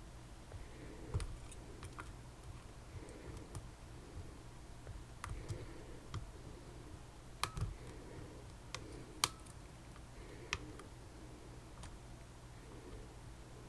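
Small sharp clicks and ticks of lock picks working inside a Tesa TK100 lock cylinder, about ten of them at irregular intervals, over a faint steady hum.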